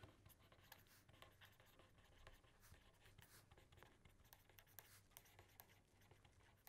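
Faint scratching of a pen writing on paper: a run of short, irregular strokes as words are written out.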